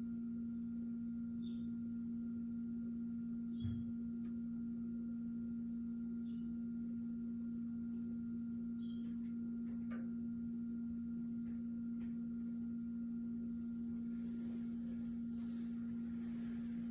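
Steady low electrical hum, with a few faint short chirps and ticks over it and a soft knock a little under four seconds in.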